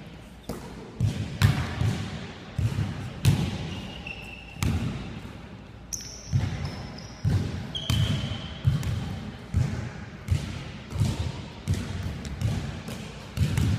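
Basketballs bouncing on a hardwood gym floor: irregular thuds, about one or two a second, echoing in the large hall, with a few short high sneaker squeaks in between.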